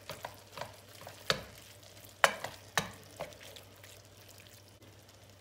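Wooden spoon stirring leeks and tomatoes in a stone-coated pot, giving soft scrapes and light knocks against the pot over a faint sizzle. The stirring dies away about three and a half seconds in.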